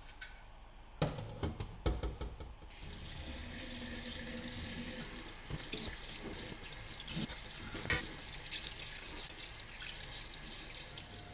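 A few sharp knocks and clatters, then water running steadily, as from a tap, starting about three seconds in.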